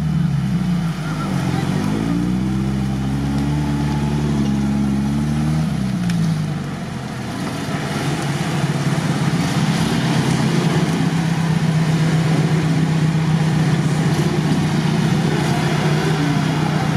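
An old GAZ-69 jeep's engine revs up and down as it pushes through a reedy bog. About six seconds in this gives way to a steady engine drone from UAZ-469 4x4s labouring in deep mud.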